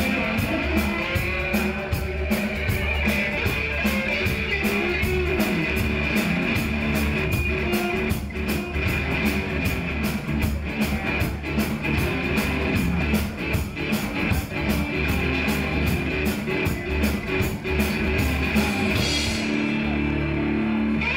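Live blues-rock band playing: electric guitar, electric bass, drum kit and amplified harmonica over a fast, steady cymbal beat. The cymbals drop out about nineteen seconds in.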